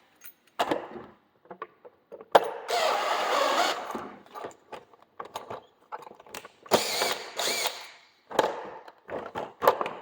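Cordless drill/driver running in two short bursts, the first about two seconds in and a shorter one near seven seconds that speeds up and slows, with clicks and handling knocks between; it is pre-drilling and screwing a vertical blind's valance bracket in place.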